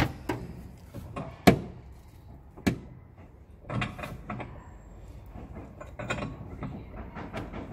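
Irregular sharp metallic clicks and knocks, about half a dozen, the loudest about a second and a half in, from tools and parts on a Ford Fiesta Duratorq TDCi diesel engine as it is turned over by hand with a new timing belt fitted.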